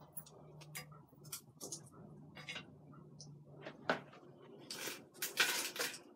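Silicone-tipped metal kitchen tongs clicking and tapping as cooked chicken wings are picked up and moved, with a louder scraping rustle near the end as wings go into a pot. A low steady hum runs under it and stops about four seconds in.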